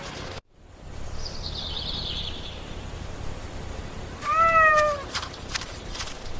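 A cat meows once about four seconds in, a drawn-out meow that falls slightly in pitch. A faint high chirping comes before it, and a few sharp clicks follow, over a steady low background noise.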